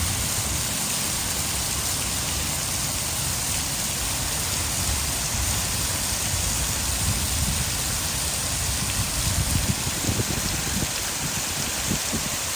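Heavy rain falling steadily, mixed with water pouring over a hydroelectric dam, with an uneven low rumble underneath.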